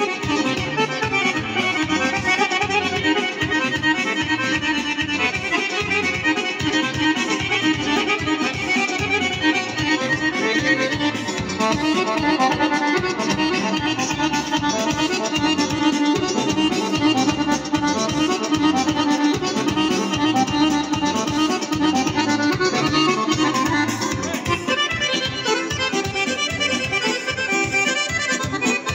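Accordion-led Serbian folk dance music for a kolo, played continuously with a steady beat.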